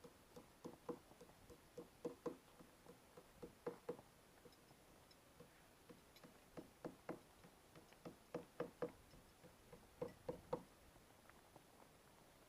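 Faint, irregular light knocks and taps, many coming in quick pairs or small clusters, over near silence.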